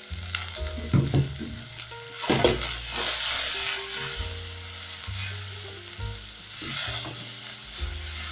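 Shredded cabbage, carrot and green pepper sizzling in hot oil in a metal pan while a wooden spoon stirs and tosses them. The sizzle swells about two seconds in and again near seven seconds as the vegetables are turned, with a few light knocks of the spoon.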